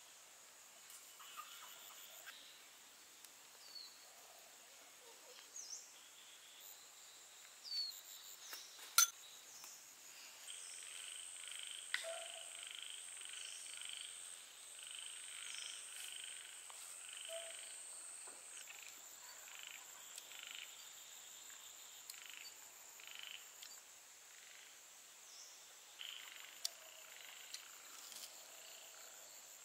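Faint ambience of frogs and insects: a steady high-pitched insect drone under repeated croaking calls, with a few short bird chirps. Two sharp clicks stand out about nine and twelve seconds in.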